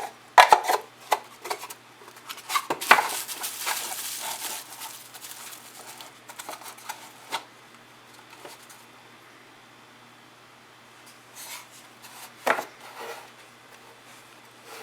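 Handmade wooden puzzle box being handled: sharp wooden clicks and knocks with some sliding and rubbing in the first few seconds, then scattered taps and one louder knock near the end.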